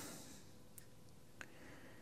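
Near silence, with two faint short clicks a little over half a second apart as plastic trimmer-head parts are handled.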